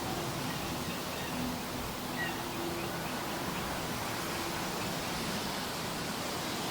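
Steady outdoor forest ambience, an even hiss, with the faint low drone of a distant aircraft under it and a single short bird chirp about two seconds in.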